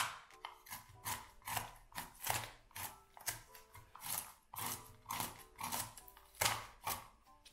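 Plastic fish scaler scraping the scales off a whole gilthead sea bream, in short rasping strokes about two or three a second.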